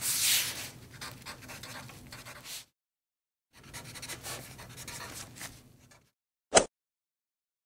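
Pencil-scribbling sound effect for a hand-drawing animation, scratching in two stretches with a pause of about a second between. About six and a half seconds in, a single short, sharp pop, louder than the scribbling.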